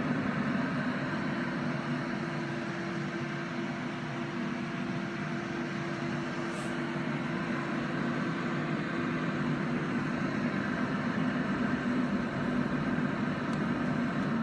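IQAir HealthPro 250 air purifier running steadily: fan air noise with a steady motor hum.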